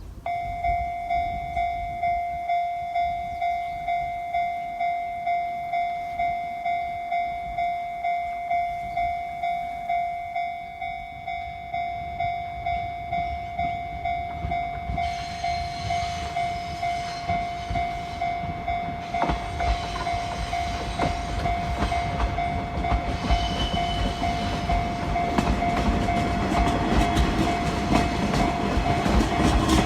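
Japanese level-crossing alarm, a Rikuun Denki electronic bell with the JR-type tone, starting suddenly and dinging steadily about one and a half times a second. From about halfway through, a Shinano Railway 115-series train approaches and rolls over the crossing, its wheel and running noise growing louder and clattering under the bell.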